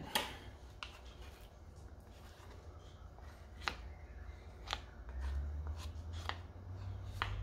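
Thick fruit cake batter being stirred and scraped in a stainless steel pot with a wooden spoon and a metal spoon, with about six light clinks of spoon on pot spread through it. A low hum grows louder about five seconds in.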